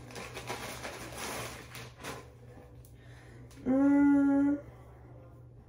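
A plastic clothing mailer bag crinkling and rustling for about two seconds as it is opened. Then, at about the point where the garment comes out, a woman's voice holds one steady note for about a second, the loudest sound here.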